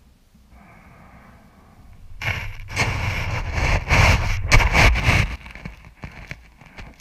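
Coarse sand and grit crunching and scraping against an action camera's housing as the camera is pushed into and handled on the beach, about three seconds of loud crunching with a low rumble, then a few faint grain clicks.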